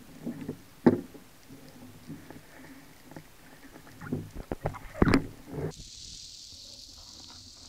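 Irregular knocks, clunks and water sloshing as a speared dentex and the speargun are handled at the surface, heard through a camera mounted on the gun; two sharp knocks stand out, about a second in and near five seconds. About six seconds in these give way to a steady high underwater hiss.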